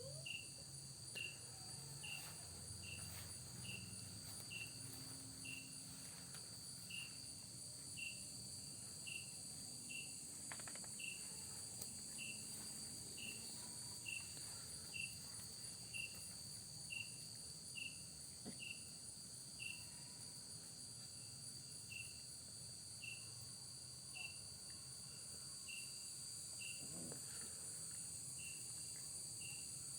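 Crickets chirping: one cricket repeats a short chirp about every two-thirds of a second, over a steady high-pitched trill of other insects.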